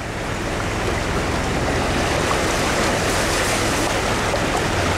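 Steady rush and splash of muddy floodwater around a vehicle's front tyre as it drives through a flooded dirt road, with a low engine hum underneath.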